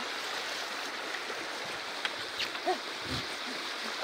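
Steady rushing of fast river current around a drifting boat, with a few faint clicks and knocks in the second half.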